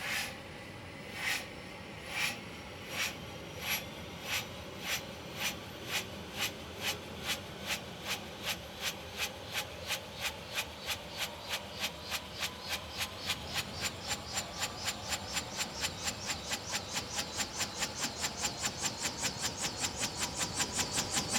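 Bell 212 helicopter starting up: the two-blade main rotor spins up, each blade pass a swish that comes faster and faster, from about one a second to about four a second. Beneath it, the turbine whine slowly rises in pitch, and the whole sound grows louder towards the end.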